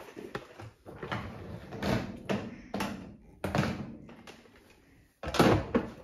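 Knocks and rattles of a Bosch dishwasher's lower wire rack being rolled out on its rails and the plastic filter being set back into the sump, several separate clacks with the loudest a little after five seconds in.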